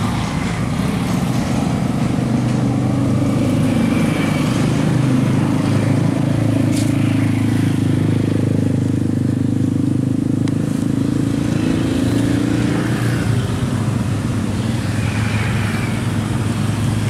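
A motor vehicle engine running steadily close by, a continuous low hum of road traffic.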